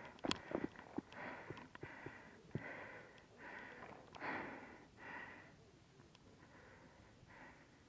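A paintball player breathing fast and audibly, a short in-and-out puff about every second, fading off after about five seconds. Sharp knocks and scuffs of footsteps and gear come in the first second.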